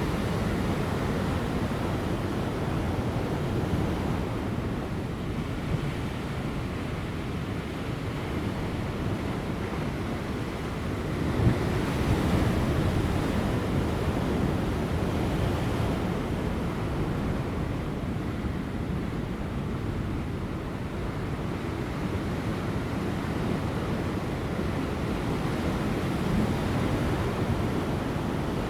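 Large ocean waves breaking on offshore rocks: a steady wash of surf with a deep rumble, one wave surging louder about twelve seconds in. Light wind runs underneath.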